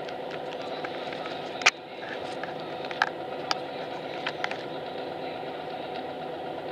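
Bus engine idling, heard inside the passenger cabin as a steady hum, with a few sharp clicks, the loudest about a second and a half in.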